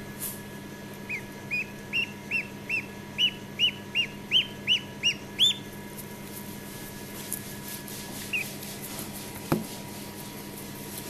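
Newly hatched Khaki Campbell duckling peeping: a quick run of about a dozen short, high peeps, two to three a second, then a single peep a few seconds later. A soft knock follows near the end.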